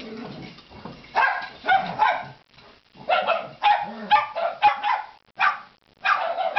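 Dog barking in a string of short, sharp barks, roughly two a second with brief gaps: excited play barking.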